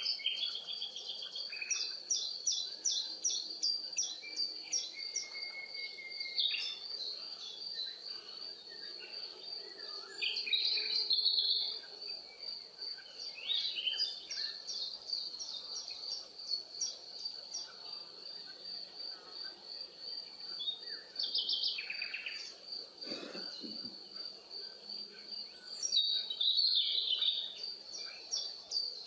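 Nature ambience: a steady, high-pitched insect trill with birds chirping over it in short, rapid series of notes.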